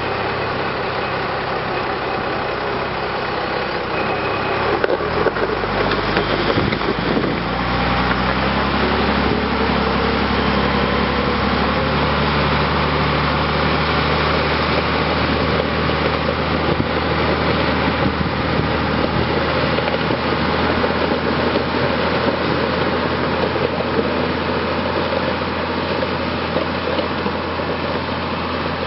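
Mattsson 261S motor grader's Scania diesel engine running steadily as the grader works along a gravel road, its note rising about eight seconds in and then holding. Gravel scrapes under the blade and tyres, with a few knocks around five to seven seconds in.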